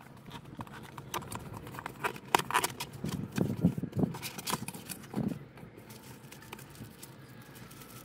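Cardboard product box being opened and its contents handled: irregular clicks, taps and rustles of cardboard and packaging, thinning out toward the end.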